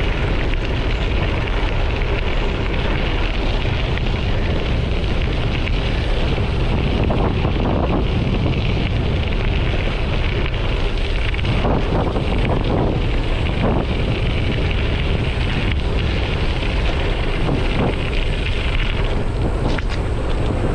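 Bicycle tyres rolling over gravel, with heavy wind buffeting the microphone and a few brief knocks from bumps in the track.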